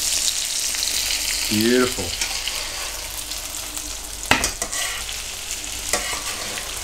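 Potato gnocchi sizzling as they fry in butter in a frying pan, with a steady high hiss, while a slotted spatula stirs and scrapes them; the spatula knocks sharply against the pan about four seconds in and again more lightly near six seconds.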